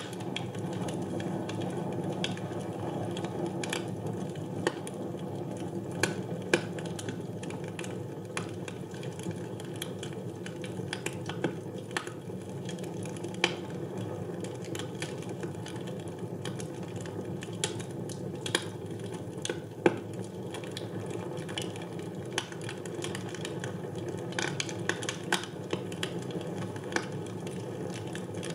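Wood fire burning in a fireplace: a steady low roar of the flames with irregular sharp crackles and pops, a few louder snaps scattered through.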